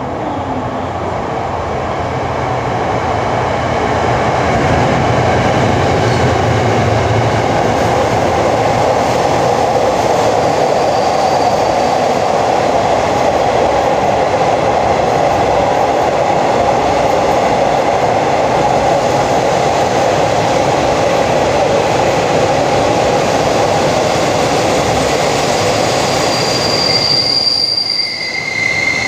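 Passenger train hauled by a diesel-electric locomotive (QSY 5218) pulling into a station: a loud, steady rolling rumble that builds over the first few seconds and holds as the train runs past, then high wheel squeal near the end as it slows to stop.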